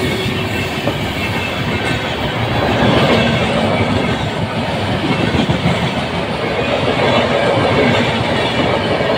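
Passenger train coaches passing at speed, their wheels rattling on the track in a steady, loud clatter.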